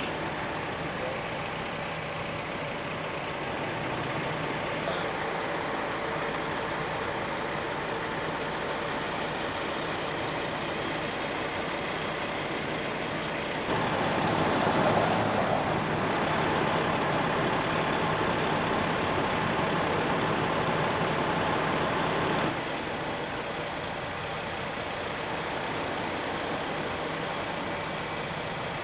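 A heavy truck's engine idling steadily. About halfway through it grows louder and noisier for several seconds, then drops back suddenly.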